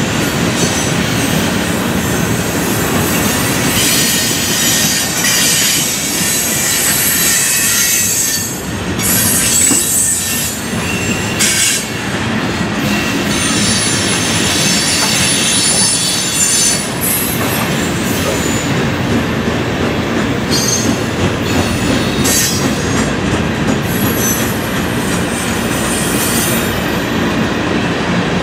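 Freight cars (steel coil cars and covered hoppers) rolling past close by: a steady rumble and clatter of steel wheels on rail, with high-pitched wheel squeal that comes and goes.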